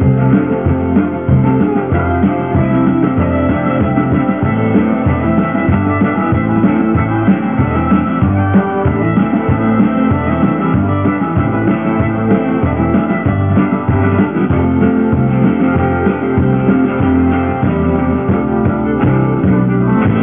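Live fiddle tune played by a band: fiddle over acoustic and electric guitar, with a drum kit keeping a steady beat.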